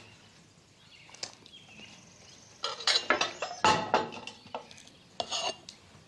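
Cutlery clinking and scraping against china plates, with a cluster of clatter in the middle.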